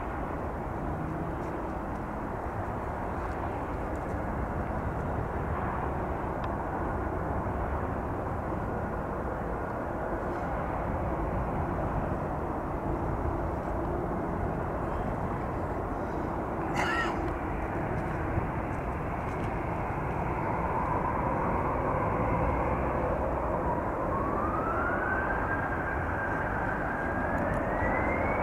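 Jet airliner engines running with a steady rush. Over the last several seconds a whine climbs in steps as the engines spool up.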